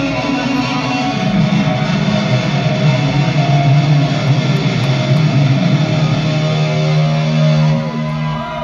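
A live rock band playing loudly with an electric guitar out front. A low note is held for a couple of seconds, then the music drops near the end.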